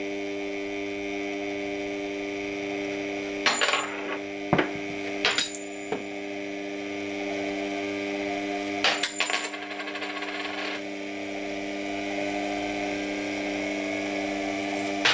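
Turntable's electric motor humming steadily while copper coins slip off the spinning disc one after another and clatter onto the table, in clusters of clicks about three and a half seconds in, about nine seconds in and again at the end. The coins fly off as their speed outgrows the grip of friction, the outer ones first.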